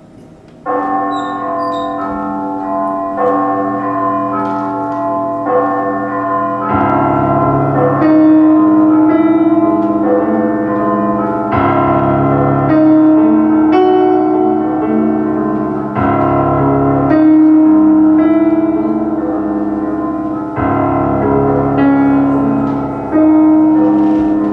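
Instrumental introduction to a song played on a keyboard backing track: slow, held chords that change every two seconds or so, with a deeper bass part joining about seven seconds in.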